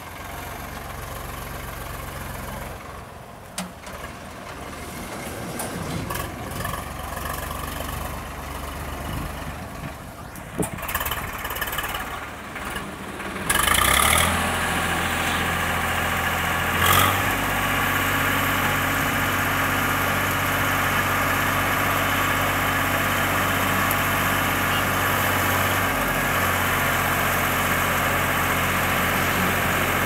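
ACE 550 NG tractor's diesel engine running with its backhoe loader fitted, a steady engine hum that becomes much louder a little before halfway and then holds steady. A single sharp knock comes a few seconds after the jump.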